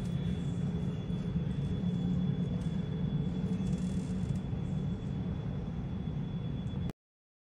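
Steady low rumble of jet airliner engines taxiing outside, muffled through the terminal window glass, with a faint steady high whine over it; it cuts off suddenly near the end.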